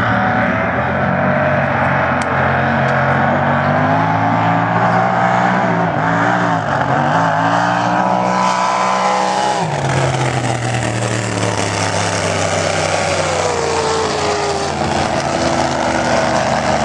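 Supercharged engines of unlimited displacement-class race boats running hard at racing speed, their pitch wavering up and down. About ten seconds in the engine note drops sharply and another engine note takes over.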